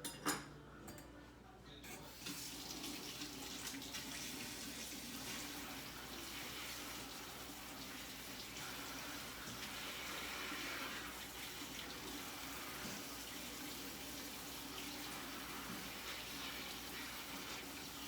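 A sharp knock just at the start, then a kitchen tap is turned on about two seconds in and runs steadily into the sink as baby bok choy leaves are rinsed under it one by one.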